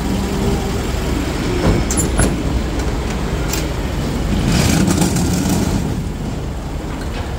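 City street traffic with heavy vehicles' engines running, a steady low rumble. A few sharp clicks come about two seconds in, and a louder rush of noise swells up around the middle and fades a second later.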